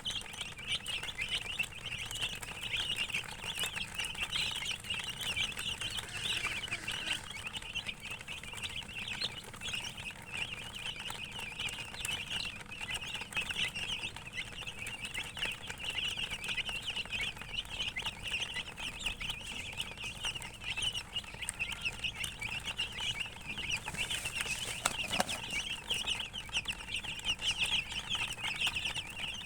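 A brood of chicks peeping, a dense, unbroken chorus of short high chirps from many birds at once.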